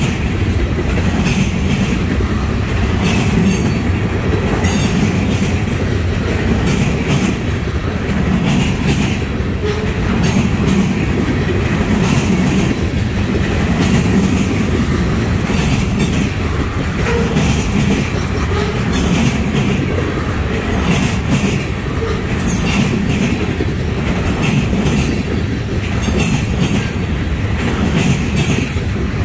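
Freight cars of a garbage train, carrying open-top trash containers, rolling past steadily. Steel wheels rumble continuously on the rail, with repeated sharp clicks as the wheelsets pass over rail joints.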